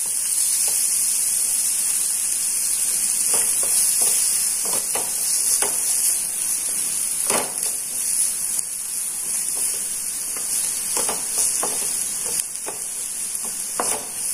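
Sliced onions sizzling in butter in a pan, stirred with a wooden spatula that scrapes and knocks against the pan now and then over a steady high hiss.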